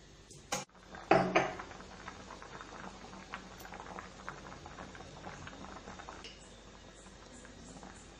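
Pot of tapioca chunks in water at a hard boil: steady bubbling with many small pops. A short knock comes about half a second in, and a brief loud clatter just after a second.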